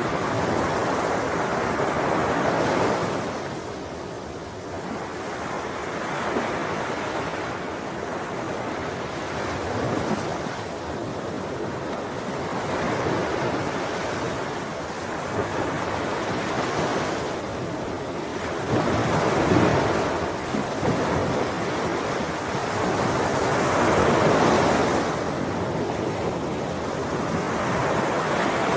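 Ocean waves breaking on a shore, a continuous surf wash that swells and eases every few seconds, with stronger breakers about three seconds in, near the two-thirds mark and again a few seconds later.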